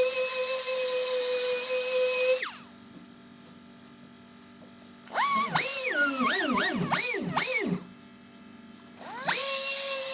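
A small power tool running at a steady high whine, then spinning down. Several seconds later it is revved in short bursts that swing up and down in pitch. Near the end it spins back up to a steady run.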